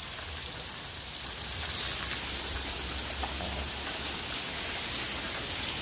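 Downpour of thunderstorm rain: a steady hiss of heavy rain falling.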